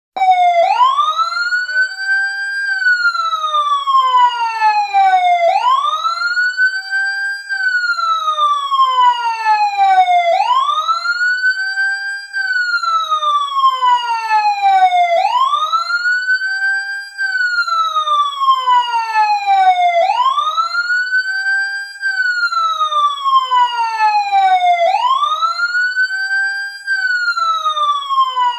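Fire truck siren wailing, switched on abruptly out of silence as the countdown reaches zero. Each cycle rises quickly in pitch, holds briefly at the top, then falls slowly, and repeats about every five seconds.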